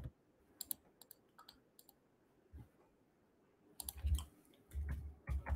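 Computer mouse clicking as the chart's drawings are deleted: a few sharp, scattered clicks in the first two seconds, then a quicker cluster of clicks with dull low thumps near the end.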